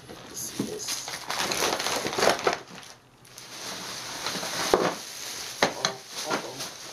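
Clear plastic bag crinkling and rustling as it is handled, dense for the first couple of seconds, then a brief lull, then a few sharp crackles.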